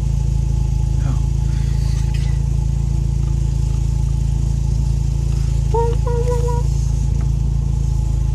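Mazda RX-7 rotary engine idling steadily, running with only the alternator belt on. A brief higher tone sounds about six seconds in. The owner is listening for an occasional, really faint whistle that he thinks might be a vacuum problem or the alternator.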